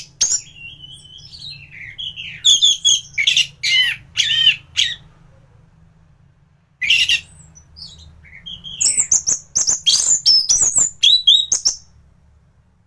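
An anis thrush singing in full song: fast, varied phrases of whistles, slurred glides and chirps, with a pause of about two seconds in the middle. A faint low hum runs underneath.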